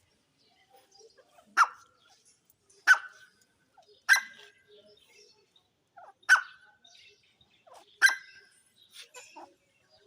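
Grey francolin giving five loud, sharp single call notes, spaced about one to two seconds apart.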